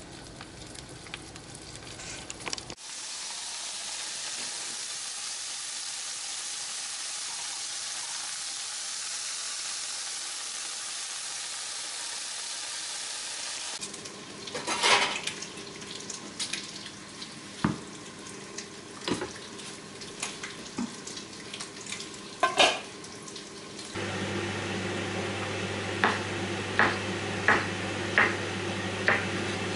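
Bacon strips sizzling in a non-stick frying pan, a steady hiss. Then scattered knocks and clinks of kitchenware, and near the end a knife slicing mushrooms on a wooden cutting board, about five chops over a low steady hum.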